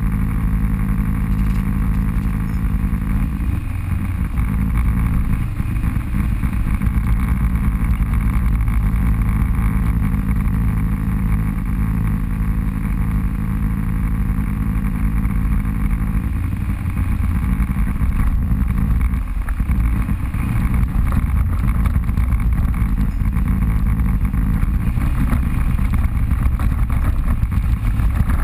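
Off-road vehicle engine running at a fairly steady pace, a loud low drone that rises and dips a little with the throttle.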